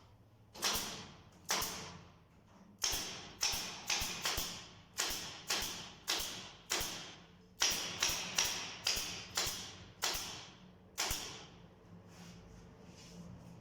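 Hammer driving nails into wood: about fifteen sharp blows in quick, uneven succession, each ringing briefly, stopping a couple of seconds before the end.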